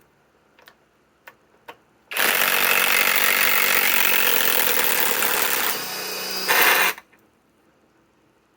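Cordless Kobalt 3/8-inch right-angle impact wrench hammering as it backs out a long timber-lock screw. A few light clicks come first as the tool is set on the screw head. About two seconds in the wrench runs for some five seconds, eases a little near the end, gives a last louder burst and stops sharply.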